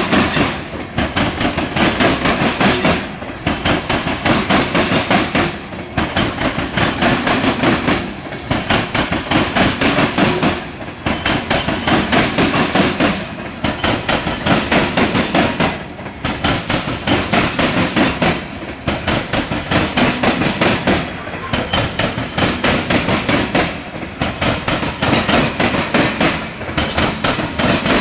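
Norfolk Southern freight cars rolling past close by, their wheels clattering over the rail joints. The clatter swells and dips in a steady cycle about every two and a half seconds as car after car goes by.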